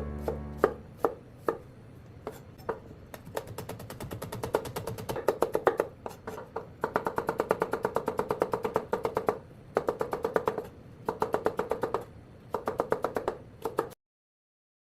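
Kitchen knife chopping on a cutting board: scattered single strokes at first, then quick runs of rapid chops with short pauses between them, ending abruptly about a second before the end.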